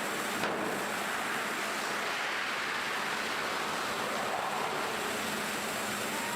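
Steady rushing noise of sawmill machinery running, with a faint steady hum underneath.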